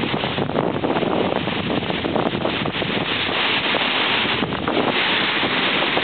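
Strong wind buffeting the microphone, mixed with small wind-driven lake waves breaking and washing up the beach, a steady rushing noise throughout.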